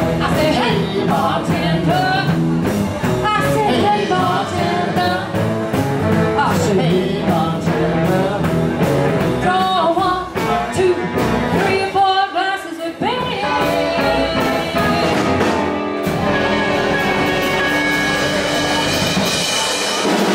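Live band playing with lead and backing vocals over electric and acoustic guitars, upright bass and drums. For the last few seconds the band holds one long ringing chord.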